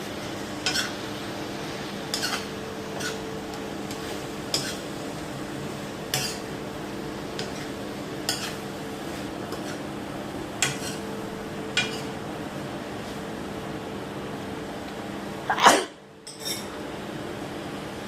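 A cooking utensil clinking and scraping against a pan as mixed vegetables are stirred, a sharp clink every one to two seconds over a steady hum. Near the end comes one loud sudden burst, the loudest sound, followed by a smaller one.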